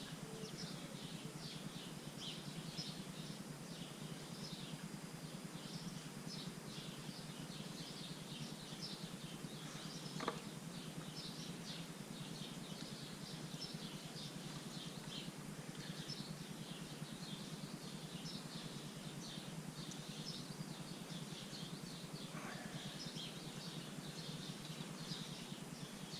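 Faint background ambience: a steady low noise with small birds chirping throughout, and a single click about ten seconds in.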